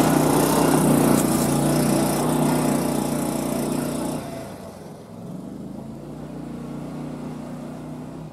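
A golf cart's small gas engine running under load as it climbs a steep hill. It grows fainter about four seconds in as the cart moves away up the slope.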